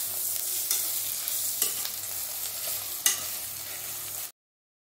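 Onions, ginger, garlic and green chillies sizzling in oil in a kadai as they are stirred and sautéed to cook off their raw smell, the spoon clinking against the pan three times. The sound cuts off suddenly near the end.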